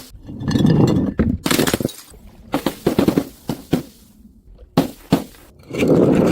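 Glass bottles smashing: a string of sharp impacts and crashes with shattering glass, two long crashing spells with separate knocks between them.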